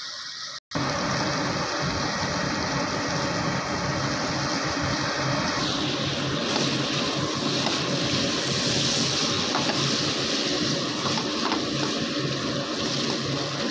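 Boneless chicken thigh pieces frying in hot oil in a cast-iron pot: a steady sizzle, with a spatula stirring through it. The sizzle turns brighter and hissier about six seconds in.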